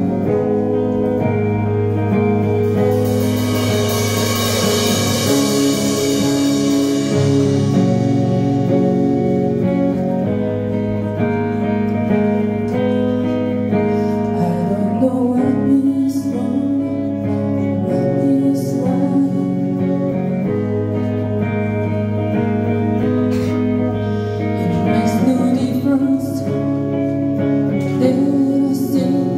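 Live rock band playing: a female voice singing over electric guitars, bass guitar and drum kit, with a cymbal wash ringing out a few seconds in.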